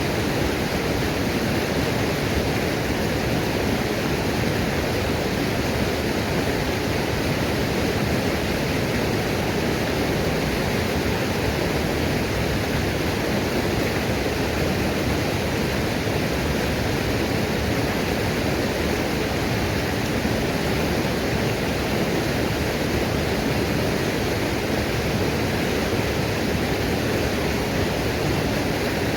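Waterfall pouring steadily: a constant, even rush of falling water with no change in level.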